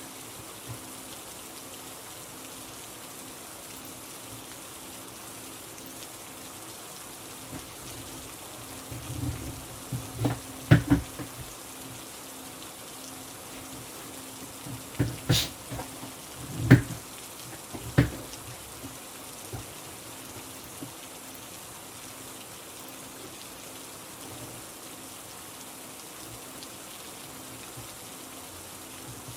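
Steady rain hiss with a faint low hum under it. Two clusters of sharp knocks and taps, about a third of the way in and again just past halfway, are the loudest sounds.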